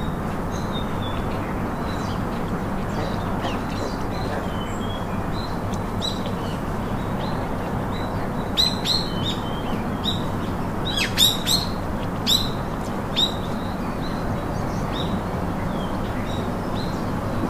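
Small birds chirping again and again over a steady outdoor background hiss, with a run of louder, sharp, falling chirps in the middle.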